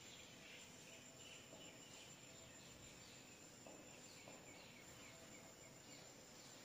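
Near silence: faint room tone with soft chirps repeating about twice a second.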